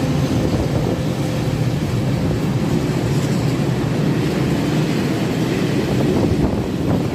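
Freight train of cement silo hopper wagons rolling past, a loud, steady rumble of steel wheels on the rails.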